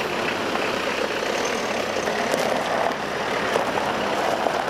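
Van engines running steadily under a low hum as the vans move off over a gravel track, with tyre noise on the loose gravel.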